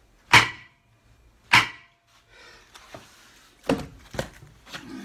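Two hammer blows on a lorry's steel front hub, about a second apart, driving it out of its brake drum; each strike rings briefly. After them come lighter knocks and clatter as the loosened hub is handled.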